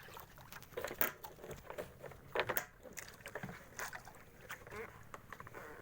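Irregular knocks and clatter aboard a small fishing boat.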